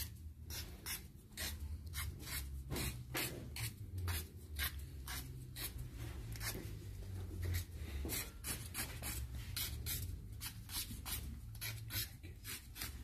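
Quick, regular scraping strokes, about three a second, as the enamel insulation is scraped off the ends of copper winding wires on a rewound electric motor stator to bare them for soldering, over a low steady hum.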